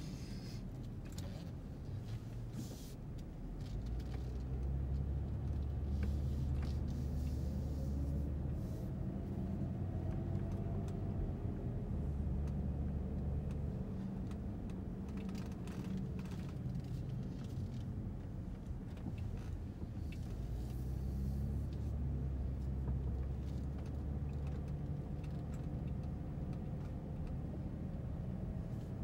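Car engine and road noise heard from inside the cabin while driving, a steady low rumble that grows louder about four seconds in, with the engine note rising as the car picks up speed. Small rattles and clicks from the cabin are scattered through it.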